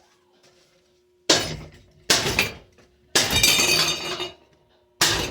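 Hampton Bay Quick Connect ceiling fan being smashed: four loud crashes with clattering and clinking of its parts, the third a clatter lasting about a second. A faint steady hum runs beneath.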